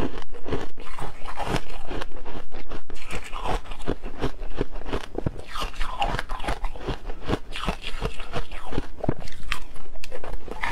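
Soft freezer frost being bitten and chewed: dense, rapid crunching that goes on without a break.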